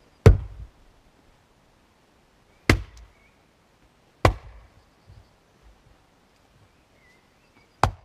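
Fiskars X25 splitting axe striking firewood four times, each a sharp crack that dies away quickly, the strikes between one and a half and three and a half seconds apart.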